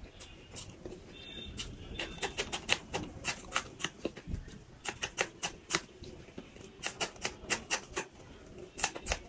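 Close-miked chewing and biting of crispy fried samosa pastry: an uneven run of sharp crunchy crackles and clicks.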